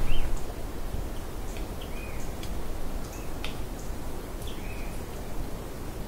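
Forest ambience: a bird giving short, arched chirps every second or so over a steady low rush.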